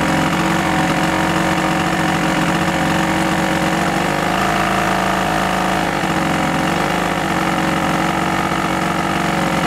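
Small two-stroke generator engine converted to run on biogas, running steadily while it powers a work light. Its speed wavers slightly midway.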